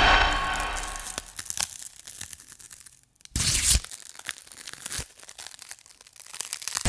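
A dense crackle of small clicks and scratches, fading over the first few seconds. About halfway through comes a short loud rush of noise, then a single sharp click a second or so later.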